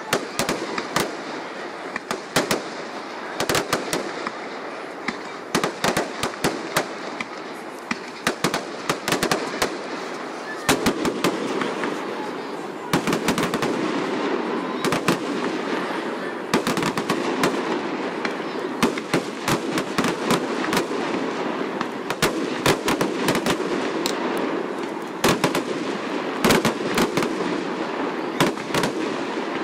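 Fireworks display: rapid, irregular bangs and crackles of aerial shells bursting, one after another, over a continuous rushing noise that grows louder about 13 seconds in.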